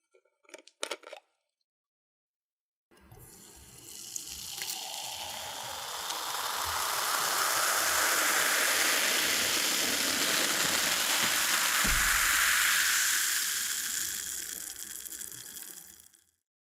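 Cola being poured into a glass: after a couple of faint clicks, a pour begins about three seconds in, swells into a steady rush of liquid and fizz, and dies away near the end.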